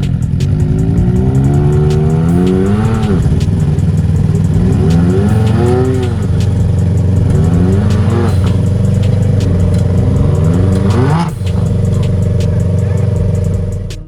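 Side-by-side UTV engine revving up and falling back in about four surges, with a steady engine drone underneath and scattered knocks and rattles.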